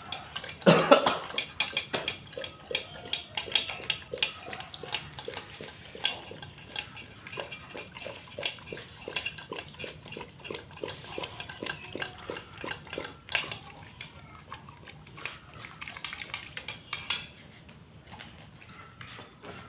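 Pit bull eating wet food from a steel pot: rapid rhythmic slurping and chewing, about three strokes a second, with the metal pot and chain clinking. A louder knock about a second in; the eating stops near the end.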